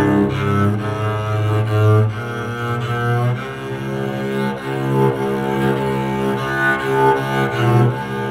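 Homemade solid-body electric cello bowed and played through a small amplifier: long sustained notes that change pitch every second or so, with a strong low note for the first two seconds.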